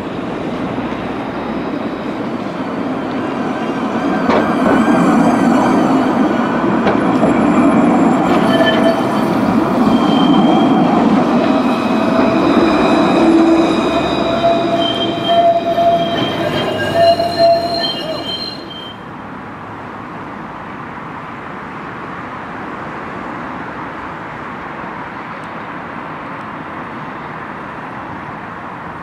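Alstom Citadis tram pulling away and passing, its steel wheels squealing on the rails in several high, steady tones. The squeal stops suddenly about two-thirds of the way through, leaving a lower, steady city background.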